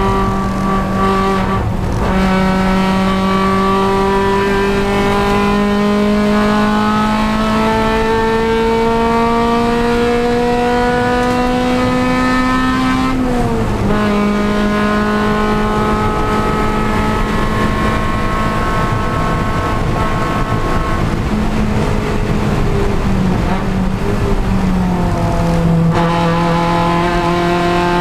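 Honda Civic Si race car's engine under load from on board, rising slowly in pitch through a long pull, dropping sharply about halfway through and again near the end at gear changes or lifts, then climbing again.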